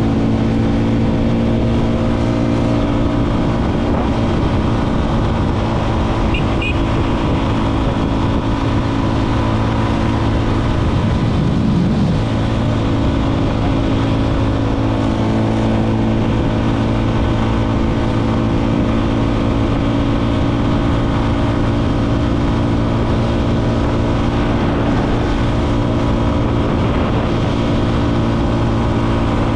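Motorcycle engine running at a steady, unchanging speed while riding, mixed with rushing wind noise.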